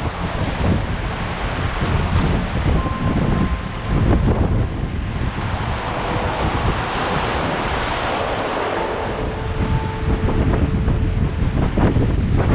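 Wind buffeting the microphone over the rush of moving river water, the water noise swelling between about six and ten seconds in.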